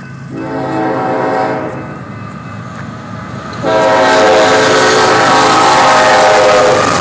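Freight train locomotive horn sounding a long warning blast at a level crossing as the train approaches. About four seconds in, it gets much louder, over the rumble of the train reaching the crossing.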